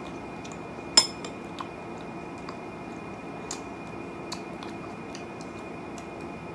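Metal forks clinking against a glass baking dish while spearing pieces of fruit. A sharp ringing clink comes about a second in, followed by lighter taps and clicks roughly once a second.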